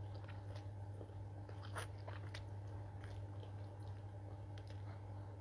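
Close-up eating sounds of instant noodles: irregular wet mouth smacks and clicks from slurping and chewing, with a stronger slurp about two seconds in. A steady low hum runs underneath.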